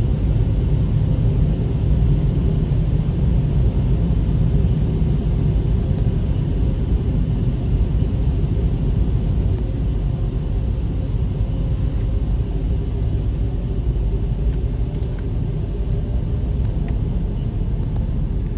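Steady low rumble heard inside a car's cabin as the car idles and rolls slowly forward, easing off slightly near the end.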